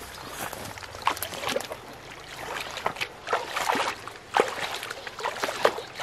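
Bare feet wading through shallow, muddy water: irregular sloshing splashes with each step.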